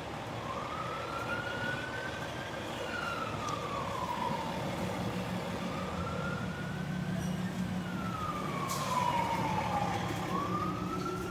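Fire engine's electronic siren on a slow wail, its pitch gliding up and down about every five seconds. A heavy truck engine rumble grows louder in the second half as the engine approaches and passes.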